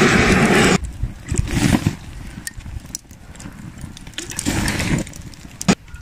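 Gas torch blasting flame into lump charcoal, a loud steady hiss that cuts off about a second in. Then the lit charcoal crackles quietly with scattered ticks, and one sharp click comes near the end.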